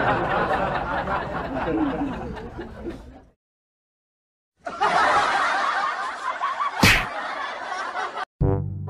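Snickering laughter that cuts off abruptly into a second or so of dead silence, then resumes, with a sharp smack a couple of seconds later. A brass music sting begins right at the end.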